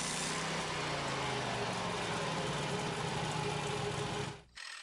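Portable band sawmill's small engine running steadily, its pitch slowly falling, then cut off abruptly near the end.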